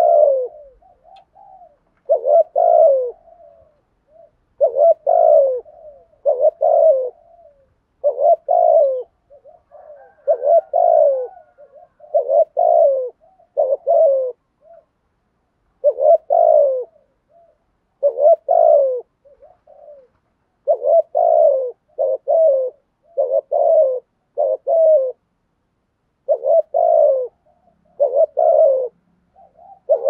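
Spotted dove giving its rapid, insistent cooing (the 'thúc gù' coo): short clustered low coos, repeated about every second or two with brief pauses. This is the call prized in a decoy bird for luring wild doves.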